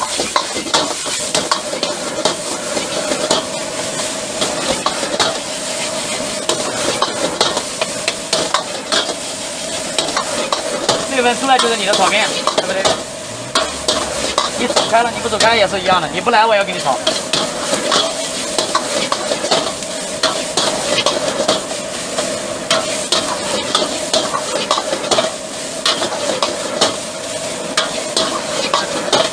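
Fried noodles sizzling in a wok over a gas flame as a metal spatula stirs and scrapes them, with frequent clicks of the spatula against the wok.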